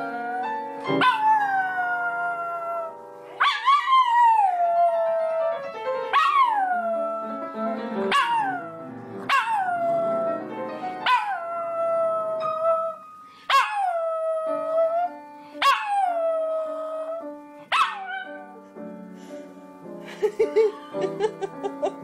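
A puppy howling again and again, about nine howls in a row; each one leaps up in pitch and then slides down into a held note. Music plays quietly underneath.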